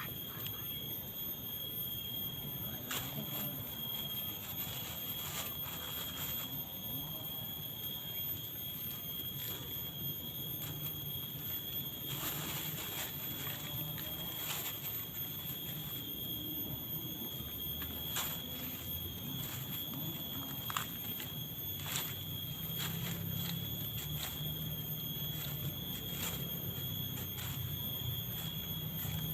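A knife slicing a banana heart (banana blossom), heard as scattered short cuts at uneven intervals. Under them runs a steady high-pitched whine that never changes.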